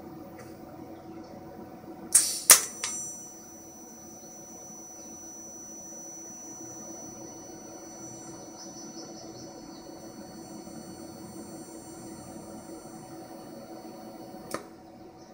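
TIG welder arc fusion-welding a stainless steel fitting: a short loud burst and a sharp click as the arc strikes about two seconds in, then a steady high-pitched whine from the arc for about twelve seconds, cutting off with a click near the end.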